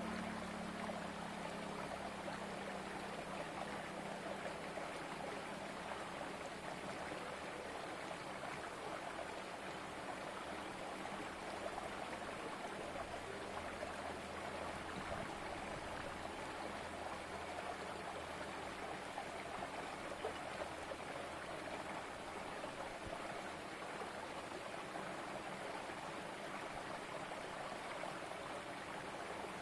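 Small rocky stream running steadily, water trickling and splashing over stones.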